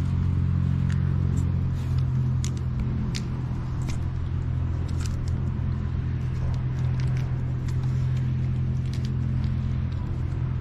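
A steady low mechanical hum, with scattered light clicks of small metal washers and a nut being handled and fitted by hand.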